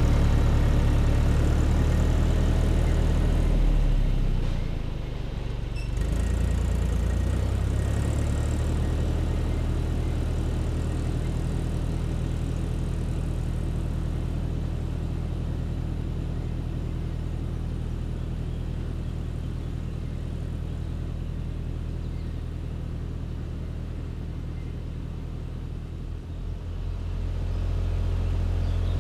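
Tractor engine running steadily while pulling a rotary hay tedder, fading as it drives away and growing louder again near the end as it comes back.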